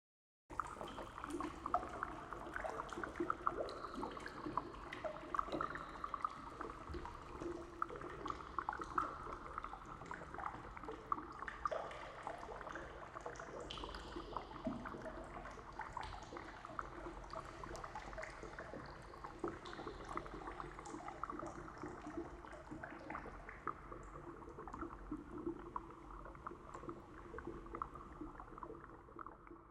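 Water drops dripping and plinking in a dense, overlapping patter with an echoing ring, fading out near the end.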